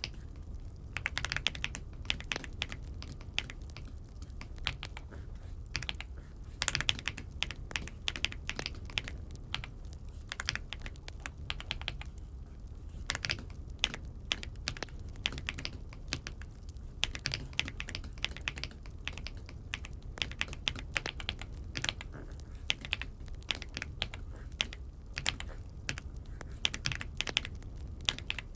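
Typing on an Aula F75 mechanical keyboard: quick, irregular key clicks in bursts with short pauses, over a low steady hum.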